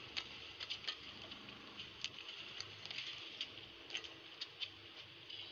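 Badminton rally: sharp, irregular clicks of rackets striking the shuttlecock and players' shoes on the court, over a quiet arena background.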